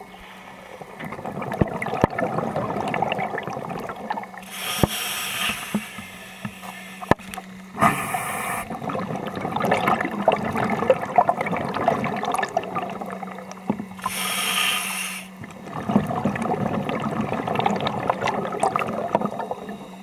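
Scuba diver breathing through a regulator underwater: long bubbling exhalations, with short hissing inhalations in between. A steady low hum runs underneath.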